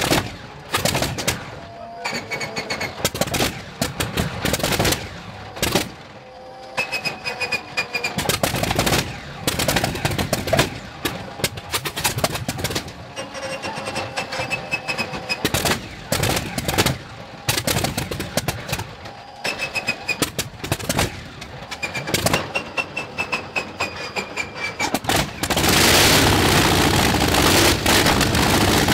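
Shvetsov ASh-62IR nine-cylinder radial aircraft engine starting up: irregular bangs and pops as the cylinders fire unevenly, with a few short falling whines. About 25 seconds in it catches and settles into a steady, loud run.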